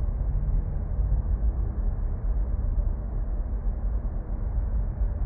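A steady low rumbling noise.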